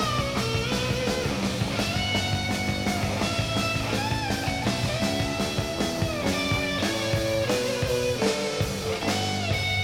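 A rock band playing live: a lead electric guitar holds long notes that bend and slide in pitch, over a steady drum beat and bass.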